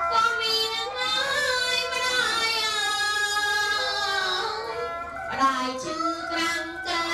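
A high female voice singing a Khmer wedding song in long, wavering held notes, with music behind it.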